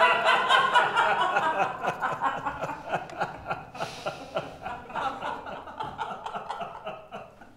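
Several people laughing together, a dense burst of chuckling and giggling that dies down toward the end.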